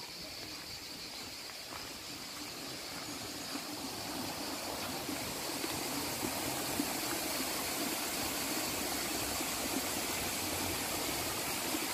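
Small shallow stream running over rocks in a steady rush, growing louder over the first few seconds and then holding steady.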